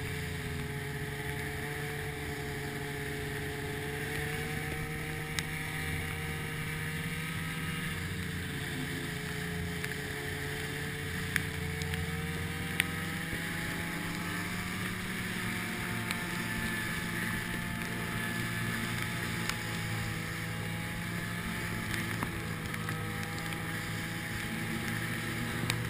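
Polaris Indy Widetrak snowmobile engine running steadily under way, its pitch wavering slightly with the throttle, with wind rushing over the microphone and a few faint clicks.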